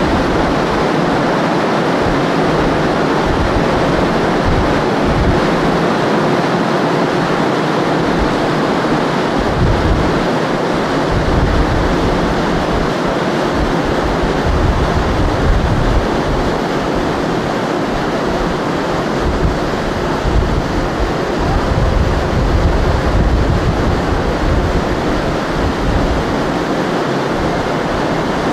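Steady rush of wind and sea past a ferry under way, heard on deck, with wind buffeting the microphone in irregular gusts.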